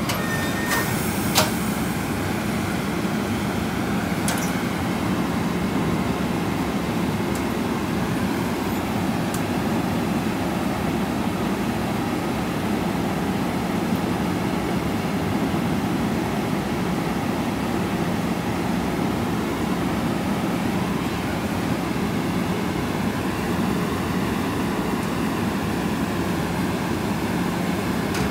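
Steady low drone of an Amtrak passenger train of Horizon coaches alongside the platform, with its locomotive and car equipment running. One sharp click comes about a second in.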